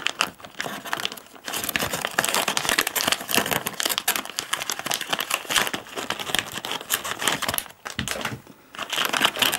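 Plastic packaging of soft-plastic fishing lures crinkling as it is handled, a dense irregular crackle that eases off briefly near the end.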